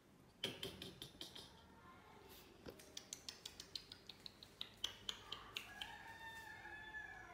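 Faint, quick light clicks or taps, about four a second, then a cat meows once near the end in a drawn-out call.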